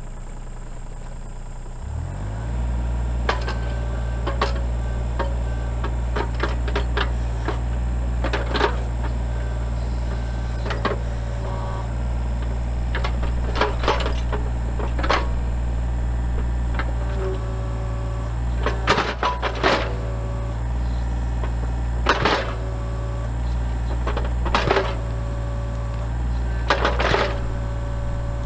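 Mini excavator engine running steadily, throttling up about two seconds in, with repeated knocks and cracks as the bucket digs and rips at tree stumps and roots.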